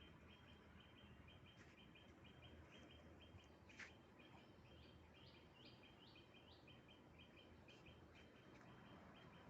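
Near silence with faint chirping: short high calls repeating several times a second, with a sharper, louder chirp about four seconds in.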